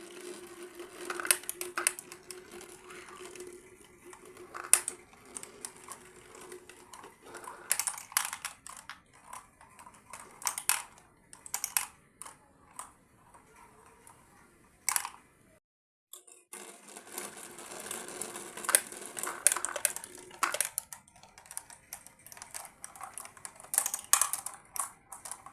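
Marbles rolling down a marble run: a steady rolling hum while they run along the track, broken by many sharp clicks and clacks as they drop and knock against the pieces and each other. There is a short silent break about sixteen seconds in, after which the rolling and clacking start again.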